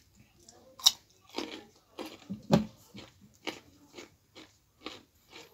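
A person chewing and biting a mouthful of chicken gizzard curry and finger-millet dhido close to the microphone: moist, crunchy chewing strokes about twice a second, with two sharper, louder bites about a second in and about two and a half seconds in.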